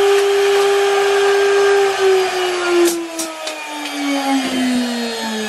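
CNC router spindle motor running at speed with a steady high whine, then switched off about two seconds in and spinning down, its pitch falling steadily. A few sharp clicks about three seconds in.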